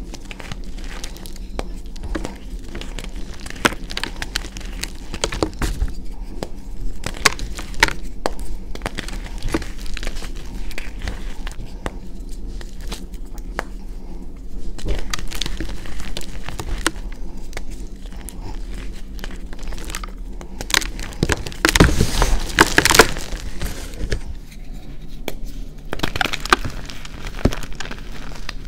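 Blocks of gym chalk crunching and crumbling as bare hands squeeze and crush them into powder: a string of dry, crisp crunches, with a louder flurry of crunching about three quarters of the way through.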